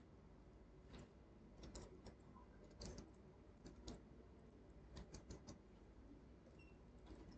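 Faint computer keyboard typing: scattered light key clicks at an irregular pace, a few at a time with short gaps between.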